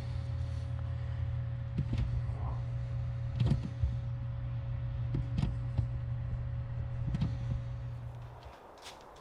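Toyota Land Cruiser 80 Series' 1FZ-FE straight-six engine idling steadily, with several sharp clicks and knocks over it. The engine shuts off abruptly near the end.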